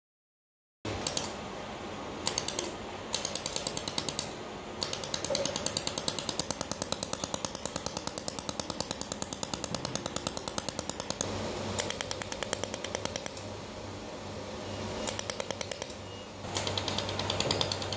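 Maxwave mold laser welding machine firing pulses in runs of rapid, sharp clicks, about six a second, over a steady low machine hum. The runs start about a second in and stop and restart several times, the longest lasting about six seconds.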